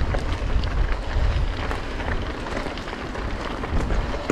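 Riding a mountain bike: wind on the microphone, with scattered clicks and rattles from the bike and trail.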